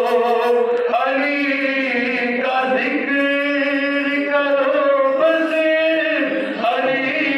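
Male devotional chanting of a zikr in praise of Ali, sung in long held notes that step from pitch to pitch.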